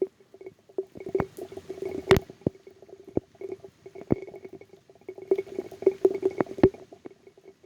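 Raindrops hitting a phone right on its body and microphone: an irregular patter of taps and knocks over a low hum-like tone, with harder strikes about two, four and six and a half seconds in.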